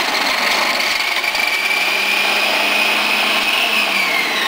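Electric food processor motor running with its chopping blade, chopping ginseng root: a steady whine that begins to fall in pitch near the end as the motor slows.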